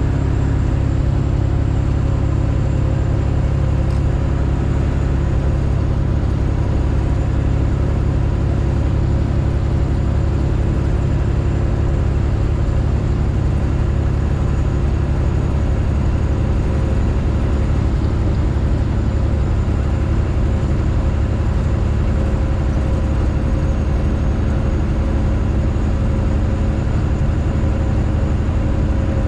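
Straight-piped Detroit Diesel engine of a Freightliner Classic XL semi truck running under way, a loud, steady exhaust drone that holds one pitch with no gear changes.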